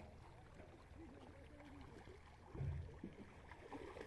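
Faint splashing and churning of water as pangas catfish thrash together in a seine net, with one dull thump about two-thirds of the way in.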